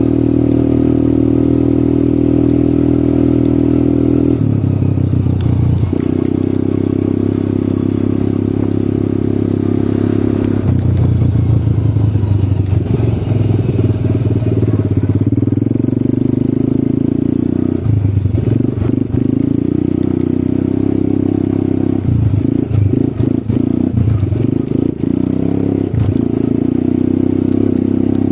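ATV engine running under way, its pitch stepping up and down every few seconds as the throttle is opened and eased off. It turns choppy, with short dips, in the last third.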